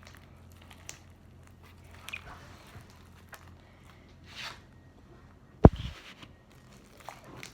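Faint handling noises: scattered rustles, clicks and soft squishes, with one sharp knock a little past halfway.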